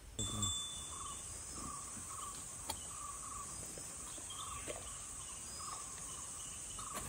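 Insects calling in forest: a steady high-pitched buzz with a lower chirp pulsing evenly about one and a half times a second, and one light click a little before halfway.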